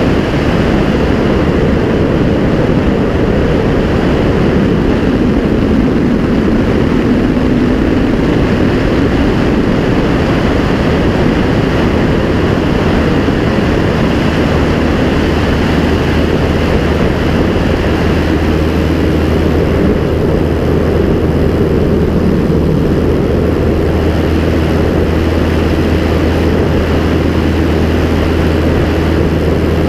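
The Continental C-90 four-cylinder air-cooled engine and propeller of a clipped-wing Piper Cub run steadily in flight, with wind rushing past. A low drone grows stronger about halfway through.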